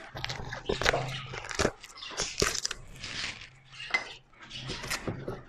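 Printed protective plastic film being peeled by hand off an aluminium composite cladding panel: irregular crackling and rustling with sharp clicks, easing briefly about four seconds in.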